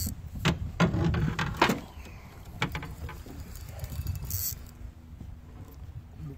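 Fishing reel and rod being worked against a hooked flathead catfish: a run of sharp mechanical clicks and knocks, thickest in the first two seconds, over a steady low rumble.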